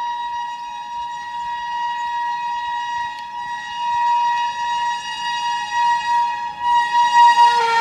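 Train horn sounding one long, steady note, held unbroken and growing louder near the end.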